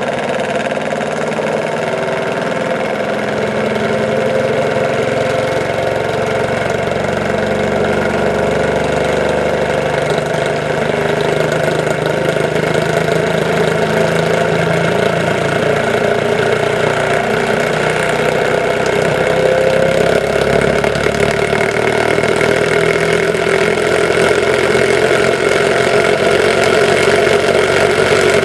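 Small pulse motor running at speed: a magnet rotor spinning between two pulsed electromagnetic coils, making a steady mechanical whirring hum that grows slightly louder toward the end.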